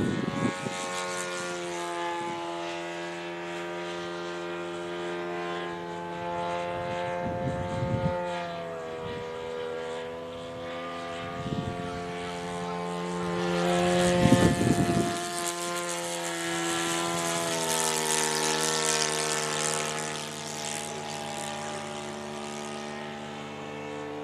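Radio-controlled model Hawker Hurricane in flight, its engine and propeller droning, with the pitch drifting up and down as it passes. It is loudest near the start and again about fourteen seconds in.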